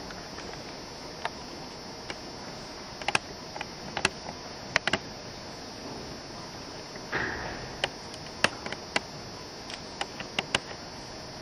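Scattered sharp clicks and taps, some in quick pairs or clusters, over a steady hum of room noise with a faint high whine; a brief rustle comes about seven seconds in.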